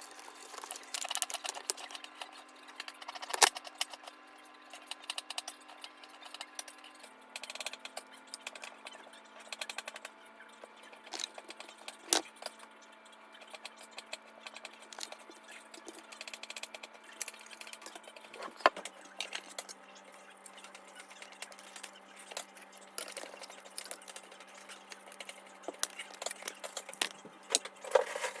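Scattered clicks, taps and rattles of plastic car side-mirror parts and hand tools being worked during disassembly, with a louder knock about three seconds in. A faint steady hum runs underneath and drops in pitch twice.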